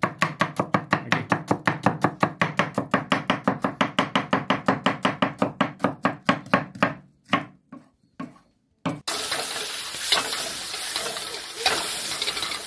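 Knife chopping onion on a cutting board in fast, even strokes, about six a second, slowing to a few separate cuts and stopping about seven seconds in. From about nine seconds, a steady sizzle of food frying in hot oil.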